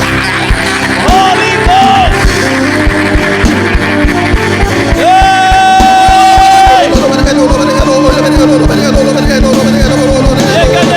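Live church worship music: a steady drum beat under held chords, with a voice singing and calling out over it. It holds one long high note for about two seconds in the middle.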